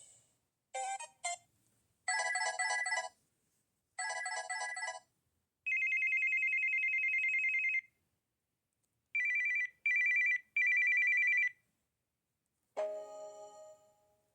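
Samsung SPH-M390 cell phone playing its built-in ringtones one after another, each a short electronic pattern followed by a gap. First come groups of quick beeps, then a long trilling ring, then three short trilling rings, and last a chime that fades away.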